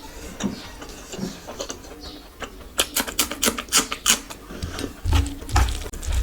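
Close-miked eating: chewing with a quick run of wet mouth clicks and smacks about three to four seconds in, then a few dull thuds near the end.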